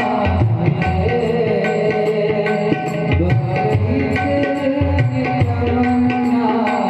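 Indian devotional music: tabla playing a steady rhythm under held melodic accompaniment.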